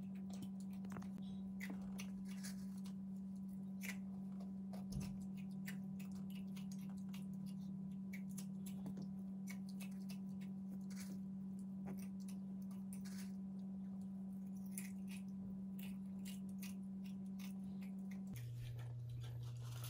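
A steady low hum, dropping to a lower pitch near the end, under faint small clicks and rustles of hands twisting a pipe cleaner around plastic straws and wooden craft sticks.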